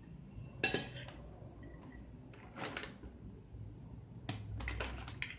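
A plastic zip-lock bag being handled while grated carrot is put into it: a sharp knock about two-thirds of a second in, a rustle a couple of seconds later, then a quick run of small clicks and crinkles near the end.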